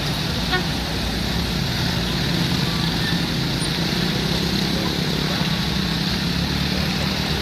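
Steady road-vehicle noise: a continuous low engine rumble with tyre and traffic hiss, holding an even level throughout.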